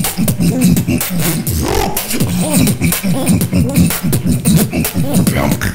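Solo human beatboxing: a fast run of mouth-made drum hits and clicks layered over a hummed voice line that slides up and down in pitch.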